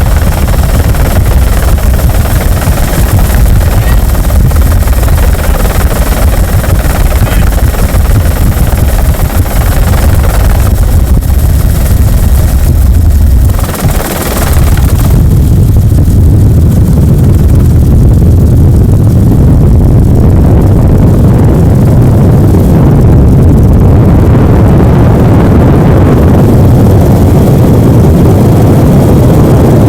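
Loud, steady helicopter rotor and engine noise heard from inside the cabin, a dense low rumble that dips briefly about halfway through before carrying on.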